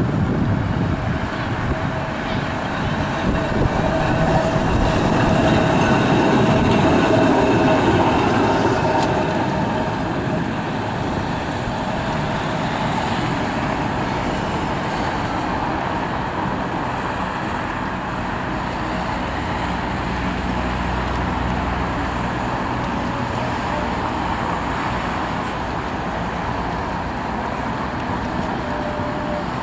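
Blackpool Balloon double-deck tram running past on street track: wheels rumbling on the rails with a whine, loudest a few seconds in as it passes, then fading to a steady rumble as it pulls away, with road traffic.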